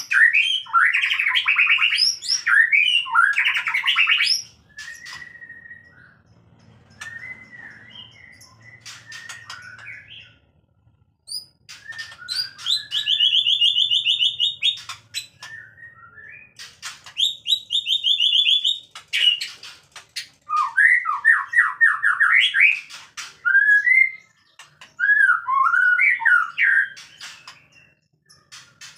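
White-rumped shama singing during mating: loud, varied phrases and fast repeated trills, coming in bursts with quieter stretches of softer notes in between.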